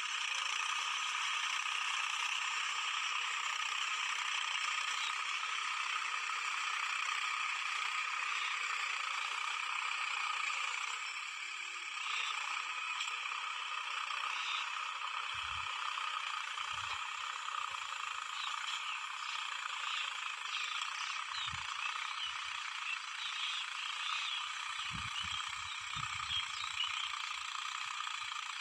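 Mahindra 275 DI tractor's three-cylinder diesel engine running steadily under load while pulling a cultivator, a clattering drone with no bass. It gets a little quieter about eleven seconds in as the tractor moves off, with a few low knocks later on.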